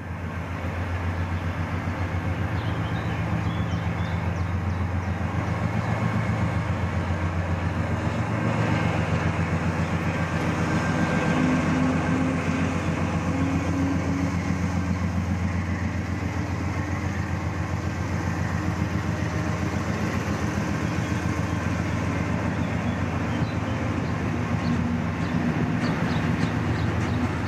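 Blue Tiger diesel-electric locomotive's 16-cylinder diesel engine pulling away under load: a loud, steady drone with an even, fast throb, alongside a whistle. Near the end the freight wagons click lightly over the rails.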